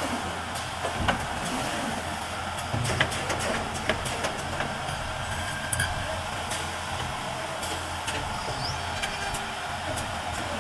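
Automatic PVC window-frame welding and corner-cleaning line running: a steady machine hiss with scattered clicks and knocks from the corner-cleaning unit and conveyor as a frame is handled.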